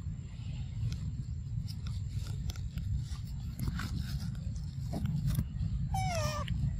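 A macaque gives one short, wavering call that falls in pitch, about six seconds in, over a steady low rumble with scattered clicks and rustles.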